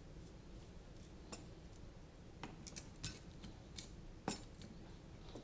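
Sparse small clicks and taps of a hex screwdriver and carbon-fibre drone frame parts handled on a workbench mat, the sharpest a little over four seconds in.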